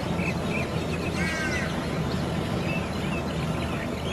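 Birds giving short, scattered calls over a steady low engine-like hum.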